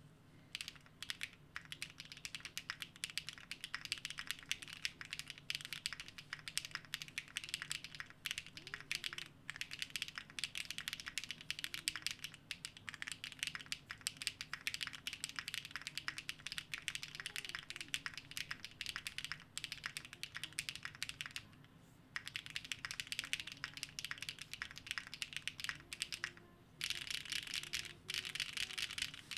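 Fast, continuous typing on a custom mechanical keyboard, a Laminar Designs Boomerang with HMX TT Red switches and KKB Red Alert keycaps: a rapid stream of keystroke clacks, broken by two short pauses in the last third.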